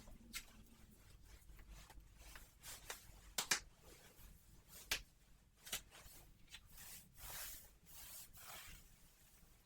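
Close-miked ASMR handling sounds: scattered soft clicks and a few sharper snaps, with a longer rustling, rubbing stretch near the middle.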